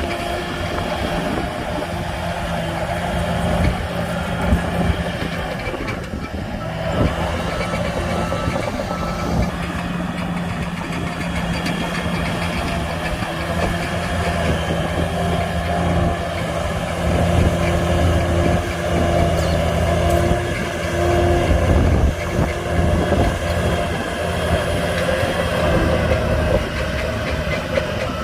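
Heavy diesel engines of a bulldozer and dump trucks running steadily with a low drone. A reversing alarm beeps briefly about eight or nine seconds in.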